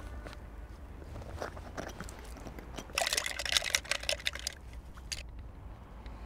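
Paintbrushes and tools rattling and scraping in a pot as a hand rummages through them: a dense burst of scratchy clatter about three seconds in, lasting a second and a half. A low steady rumble runs underneath.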